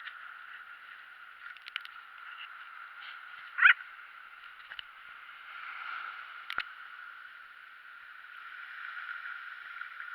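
Seawater washing and sloshing at the shoreline, a steady wash that swells and eases, with a short loud wavering high-pitched cry about three and a half seconds in and a few faint clicks.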